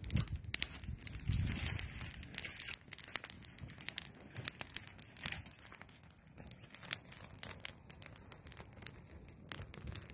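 Small stick campfire crackling, with many irregular sharp pops and snaps, after a brief rustle of movement through brush at the start.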